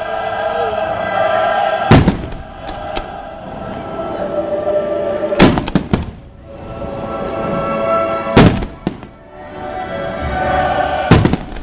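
Aerial fireworks shells bursting in sharp bangs, in groups roughly every three seconds, some as single reports and some as quick clusters of two to four, over music that plays throughout.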